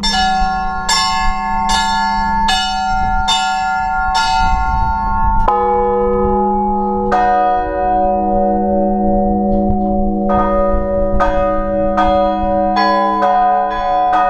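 Russian Orthodox church bells rung in a belfry for Easter. A small high bell is struck in an even beat of a little more than one stroke a second. Deeper bells come in around five and seven seconds in, and from about ten seconds in several bells are struck together in a quicker, denser pattern over a steady low bell hum.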